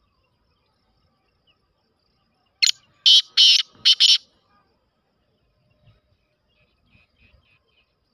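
Black francolin calling: five loud, harsh notes in quick succession, lasting under two seconds, starting about two and a half seconds in. A few faint bird chirps follow near the end.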